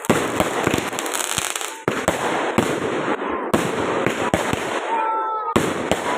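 Fireworks going off: a dense crackle of many rapid sharp pops and bangs that breaks off abruptly a few times.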